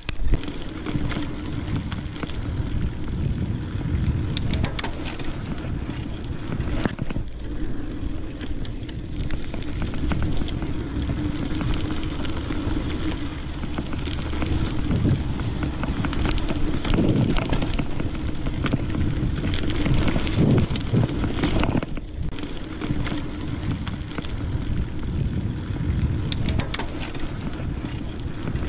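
Mountain bike ridden over a dirt single track: tyres crunching on the trail and the bike rattling with many small clicks over bumps, under steady wind rumble on the camera microphone.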